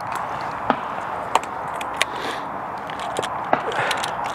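Sharp metallic clicks and clacks of a W. Greener single-shot shotgun's action being worked by hand, several spaced about half a second apart and a quicker cluster near the end, over a steady hiss.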